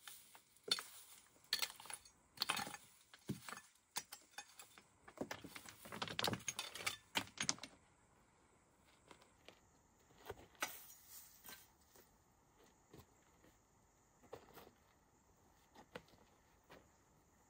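Loose stones and dry dirt being cleared by hand: stones clicking and clattering against each other amid scraping. The clatter is dense at first and thins to occasional clicks about halfway through, with a few footsteps on gravel near the end.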